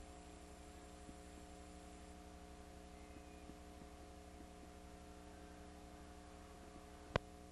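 Faint steady electrical mains hum on a blank stretch of videotape in playback, with one sharp click about seven seconds in.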